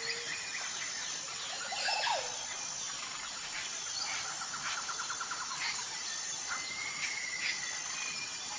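Nature ambience: a steady chirring of insects under short bird chirps, trills and whistles that come and go.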